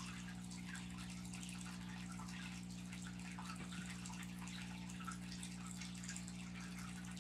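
Low steady hum with faint scattered ticks and rustles from a snake being handled against clothing.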